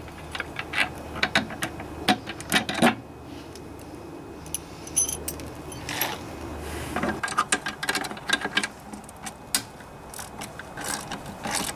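Hand tools and parts clicking, rattling and knocking while a plastic soap dispenser and battery tray is unbolted from a pressure washer. The sharp clicks come in irregular clusters, with a quieter stretch in the middle.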